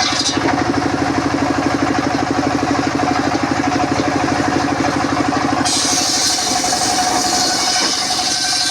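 Engine-driven circular sawmill running steadily with a pulsing engine beat; about six seconds in a higher hiss joins it as the saw blade goes back into the mahogany.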